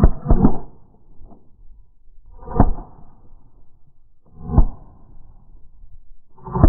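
Goose honks: about four short calls, roughly two seconds apart.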